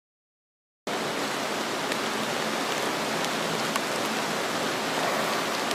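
Steady hiss of heavy rain that cuts in about a second in, with a few faint drop ticks.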